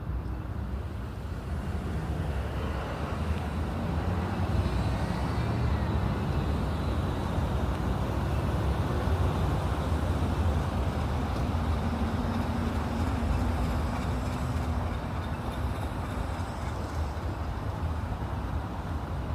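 Steady road traffic noise: a low rumble of passing vehicles that swells slightly about four seconds in.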